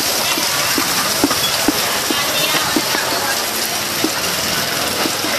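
Banana roti pancake sizzling in oil on a flat steel griddle, a steady hiss, with a string of light knocks at uneven spacing about every half second.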